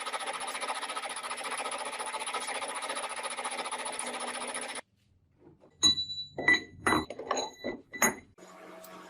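Steady abrasive rubbing of a file or sanding on metal, which cuts off suddenly. After a brief pause come about six sharp metallic clinks that ring with high tones. A low, steady machine hum starts near the end.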